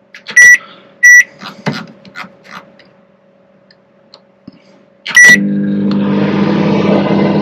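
Microwave oven keypad beeping as its buttons are pressed: two short beeps about a second apart, then a third about five seconds in. The oven then starts cooking at full power with a steady hum.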